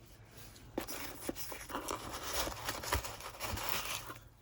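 Hands handling trading-card packs and their box: uneven rustling and scraping of packaging with a few light clicks, starting about a second in and stopping just before the end.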